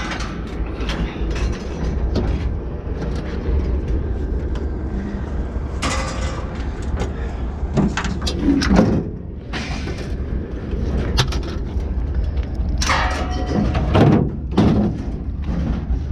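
A vehicle engine running steadily under scattered clanks and bangs of scrap metal being handled. The clanks bunch up around six to eight seconds in and again near the end.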